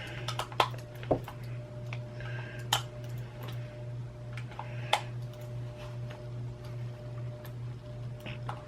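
Scattered small plastic clicks and taps from a Razer computer mouse being worked on by hand while its stuck scroll wheel is pried at, over a steady low hum.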